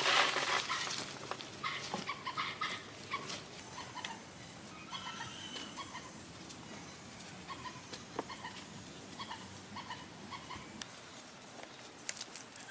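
Short, high-pitched animal calls repeating irregularly, with a few sharp knocks and a faint high pulsing trill behind them.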